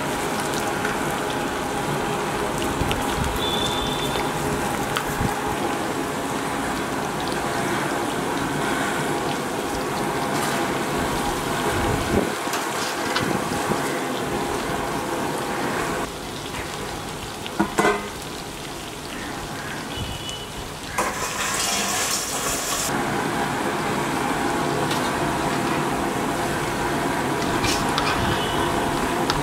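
Chicken pakora pieces deep-frying in hot oil in a large aluminium kadai: a steady bubbling sizzle. About halfway through the sizzle drops for a few seconds, with a few sharp clinks of the slotted spoon.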